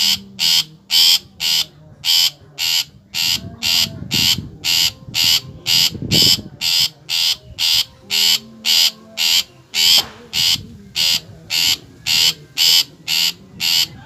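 Long-tailed shrike (cendet) giving its harsh, rasping call over and over at an even pace, about two to three calls a second.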